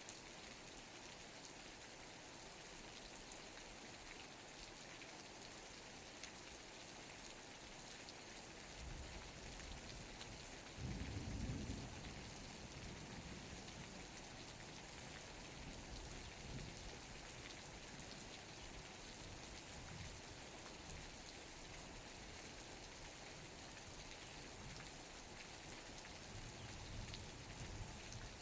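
Steady rain falling with an even hiss. A low rumble of distant thunder builds about nine seconds in and is loudest a few seconds later, and a fainter rumble comes near the end.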